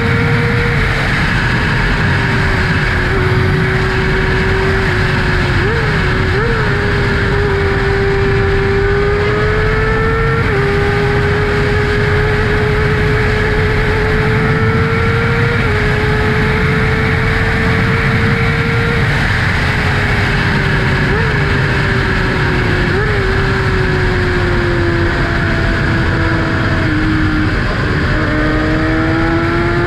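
2012 Kawasaki ZX-6R's inline-four engine through an M4 Tech 1 exhaust, running steadily at cruising speed. Its pitch slowly rises and falls with the throttle, with a few quick blips, and dips then climbs again near the end, with wind rush on the microphone.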